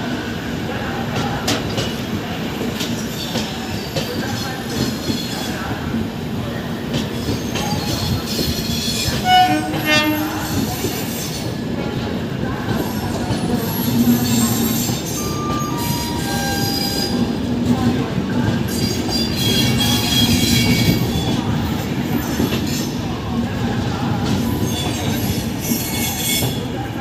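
Indian Railways LHB passenger coaches rolling slowly past along the platform, with a steady rumble of wheels on rail, some clatter over rail joints, and wheels squealing on and off. A short horn-like tone sounds about nine seconds in.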